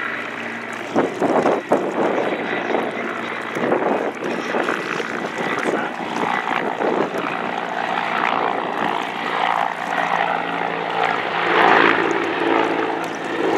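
Firefighting helicopter in flight, its rotor and engine running steadily, louder near the end.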